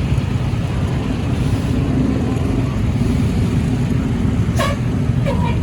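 A moving road vehicle's engine and road noise make a steady low drone. Near the end, two brief higher-pitched sounds cut through it.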